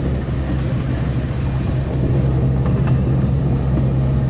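A miniature park ride train running along its track: a steady low drone from the train with the rumble of the carriages, and a few faint clicks partway through.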